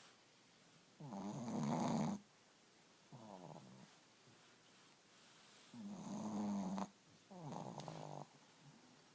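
Sleeping dogs snoring: four rasping snores about a second long each, two louder ones with softer ones between them, separated by quiet breaths.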